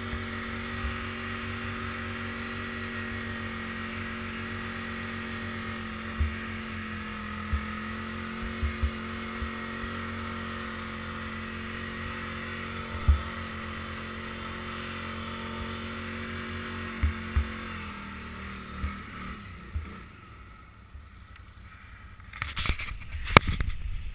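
Can-Am 800R ATV's V-twin engine running at a steady speed while the tracked machine rides over snow, with scattered low thumps from bumps. About eighteen seconds in, the revs drop and the engine note fades away. Near the end there is a burst of close knocking and rubbing.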